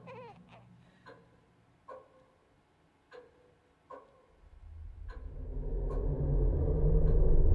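A clock ticking slowly, about once a second in an uneven tick-tock beat. From about halfway a low rumbling drone swells in and grows loud, rising over the ticks by the end.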